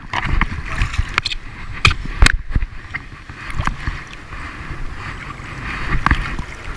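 Shallow seawater sloshing and splashing close to the microphone as a person wades through it, with a few sharp splashes, the loudest a little over two seconds in.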